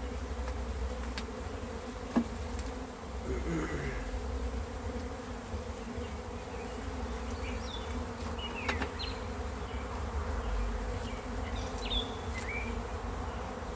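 Many honeybees buzzing steadily around an opened hive box, a continuous hum, with a sharp click about two seconds in.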